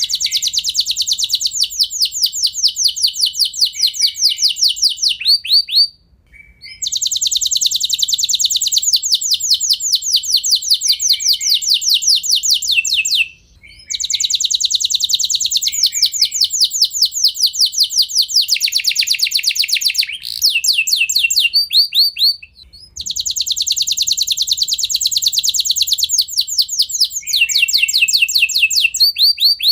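Canary singing long rolled trills: rapid runs of repeated high notes in phrases several seconds long, with short breaks between phrases about four times.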